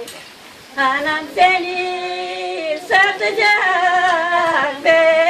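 Elderly women singing a Gagauz song unaccompanied, in long held notes; the singing breaks off briefly at the start and resumes a little under a second in.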